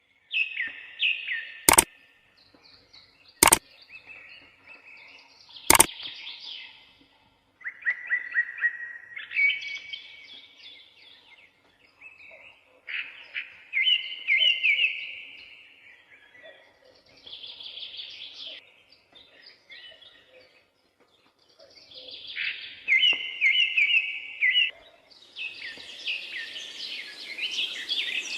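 A songbird singing in repeated phrases of quick trills and warbles, with short pauses between them. Three sharp clicks sound in the first six seconds, and a hiss rises near the end.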